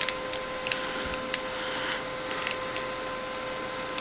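Light plastic clicks and taps of model-kit parts being handled, scattered irregularly over a steady background hiss with a faint constant whine.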